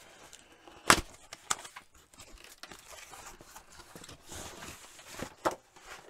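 Cardboard shipping box being opened: the perforated tear strip is ripped and the cardboard flaps scrape and rustle, with a few sharp snaps, the loudest about a second in and two more near the end.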